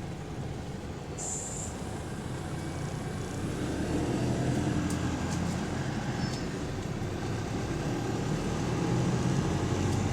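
Bus engine and drivetrain heard from inside the bus, rumbling steadily and growing louder about four seconds in as the bus gathers speed. A brief hiss of air comes about a second in.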